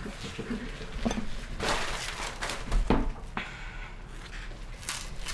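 Rustling and handling of unboxing packaging, with a few light knocks and one heavier thump about three seconds in.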